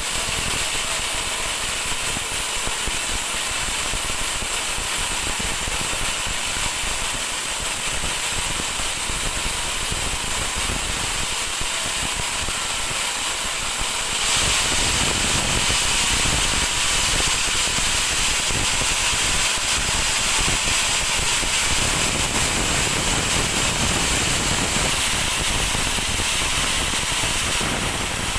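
Band sawmill running through dry teak, a steady hissing whine of the blade in the wood that grows a little louder about halfway through.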